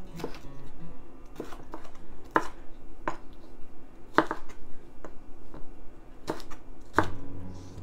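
Chef's knife chopping a green bell pepper on an end-grain wooden cutting board. The blade knocks sharply against the board about ten times, at an uneven pace.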